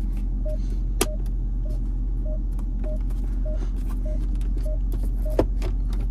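Sharp clicks from the Barton pistol-grip gear shifter being moved in the Dodge's console, one about a second in and one near the end, over a steady low hum. The car's dashboard warning chime repeats its short beep about every 0.6 s throughout.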